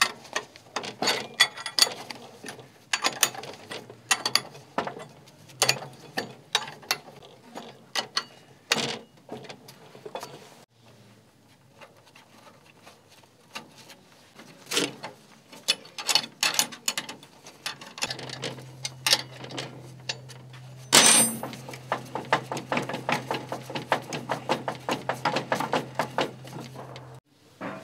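Metal clinks and knocks of a steel bench vise being worked by hand, with loose steel pieces set against the jaws. There is one sharp clang about two-thirds through, then a fast run of clicks as the vise handle is spun. A steady low hum comes in during the second half.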